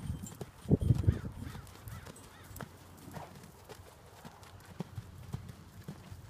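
Hoofbeats of a Quarter Horse gelding cantering under saddle, a run of low thuds with a louder cluster about a second in.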